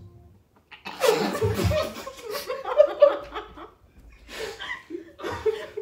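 Stifled laughter: snickers and chuckles held back behind hands over mouths. It breaks out about a second in and comes in two bouts with a short lull between them.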